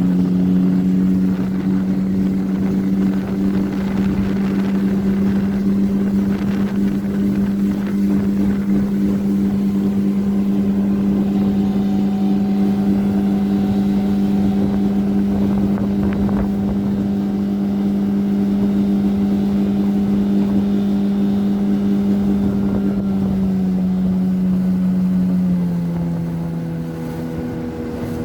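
A 9.9-horsepower outboard motor pushing a boat at a steady high speed, its pitch holding even. Near the end the engine note drops in two steps and gets quieter as the throttle eases off.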